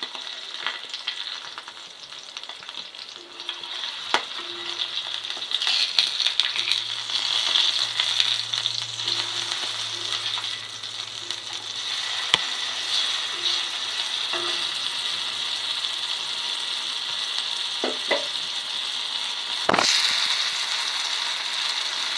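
Seer fish (vanjaram) slices sizzling steadily in shallow oil on a cast-iron dosa tawa. A steel spatula clicks and scrapes against the pan a few times as the fish is turned.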